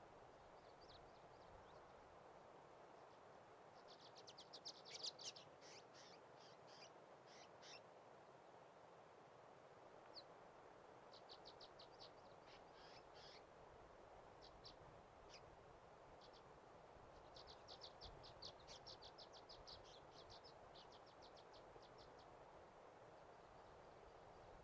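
A small bird singing rapid, high trills in three runs of several seconds each, the first about four seconds in, over a faint steady hiss.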